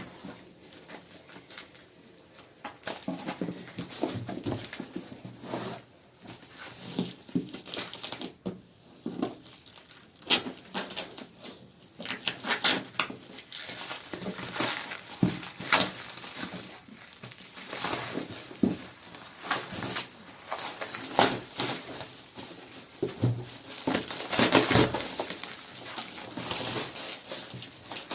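Cardboard shipping box and packing being handled and opened by hand: irregular rustling, scraping and knocks.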